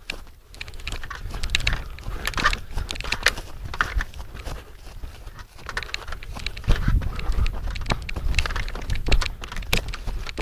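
Irregular crackling, rustling and knocking, like movement through brush, over a steady low rumble of wind or handling on the microphone.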